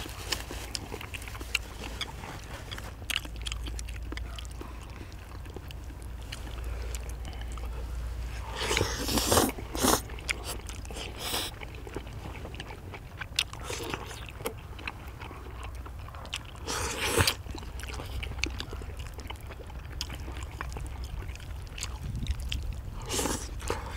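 Several people chewing chewy rice cakes in thick black bean sauce, with wet, sticky mouth sounds and small clicks throughout and a few louder mouthfuls about nine, seventeen and twenty-three seconds in.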